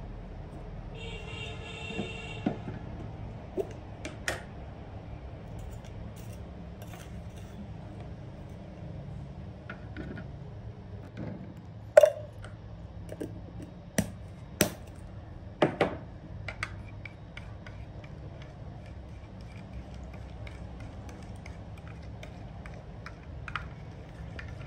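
Scattered clicks and sharp knocks of plastic feeding bottle, measuring jug and spoon being handled on a wooden table while formula milk is mixed, over a low steady room hum. The loudest knocks come in a cluster about halfway through, with lighter ticking near the end as the milk is stirred in the jug.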